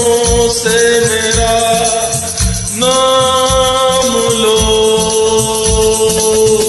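Instrumental interlude of a Hindi film song's karaoke backing track: long held melody notes over a steady drum beat.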